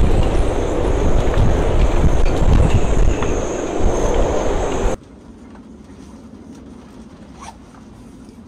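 Storm-force wind blowing hard and buffeting the microphone, with a steady high whistle over the rumble. About five seconds in it cuts off abruptly to a much quieter boat cabin with a few faint ticks.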